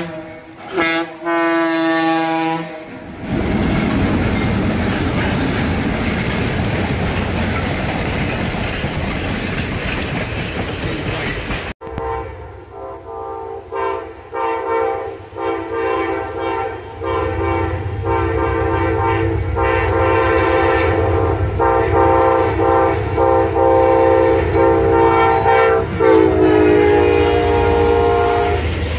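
Locomotive horn sounding a chord in two short blasts, then a passing train's wheels rumbling and clattering on the rails. About twelve seconds in, after a cut, a horn sounds again in broken blasts and then long held blasts, its pitch falling near the end as it goes by.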